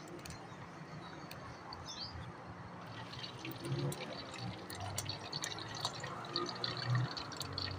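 Potato chips frying in hot oil in a karahi: a quiet sizzle full of fine crackling, growing busier about three seconds in.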